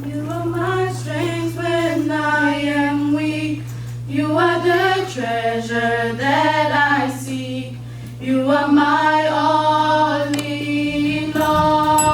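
Church worship singers singing a gospel song, holding long notes over a steady low drone. Near the end a fuller, busier low accompaniment comes in.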